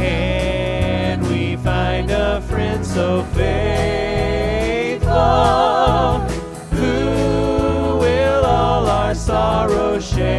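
Worship band music: several voices singing a hymn together, holding notes with vibrato, over acoustic and electric guitar accompaniment.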